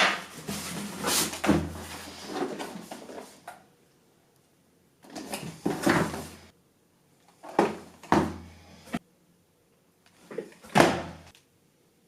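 Handling noises: four bouts of rustling and scraping with sharp knocks, separated by short quiet gaps.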